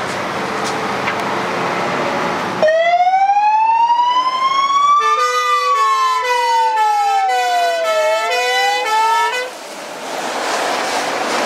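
Fire truck siren cutting in about three seconds in with a rising wail. From about five seconds a hi-lo two-tone sounds over the wail, which keeps gliding down and up, and both stop abruptly near the end. Before and after the siren, the diesel engine of a 2004 MAN TG fire truck is heard running as it pulls away.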